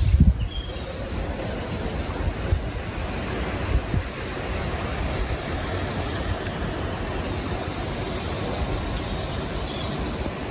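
Steady outdoor rush of wind and distant city noise, with wind buffeting the microphone in the first moment and again briefly around four seconds in. A few faint high bird chirps sit on top.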